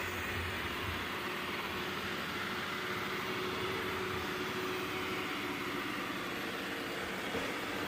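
Ecovacs DEEBOT N79S robot vacuum running with a steady whir from its suction fan and brushes. It is working normally just after a restart, cleaning without bumping into the walls.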